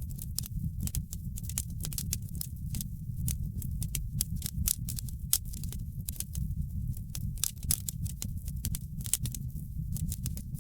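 Wood fire crackling in a fireplace: many irregular sharp pops and snaps over a steady low rumble.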